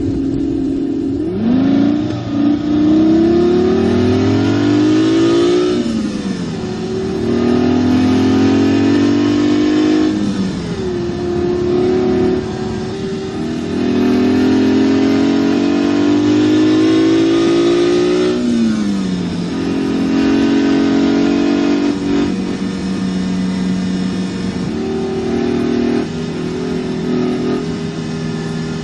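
Simulated sports-car engine sound from a SoundRacer gadget, played through a car stereo: it revs up in long rising sweeps that each fall back suddenly, like an engine pulling through the gears, three times, then runs steadier before dropping again near the end.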